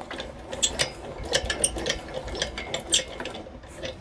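Hand-cranked Hobbymat MD65 lathe's change-gear train and leadscrew clicking and rattling as the spindle is wound by hand between screw-cutting passes.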